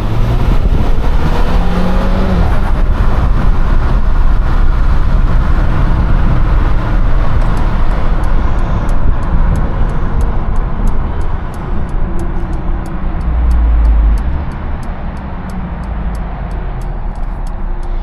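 Twin-charged Mercedes engine and exhaust under hard acceleration, its note rising in the first couple of seconds over a heavy low rumble and rushing wind noise. From about halfway a regular high ticking comes in, roughly two to three ticks a second.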